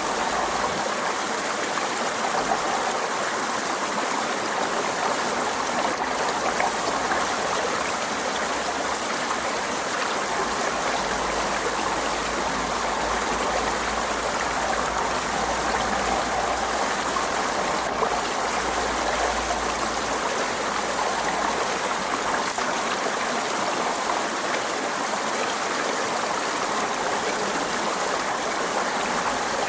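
Forest stream running: a steady, unbroken rush of flowing water.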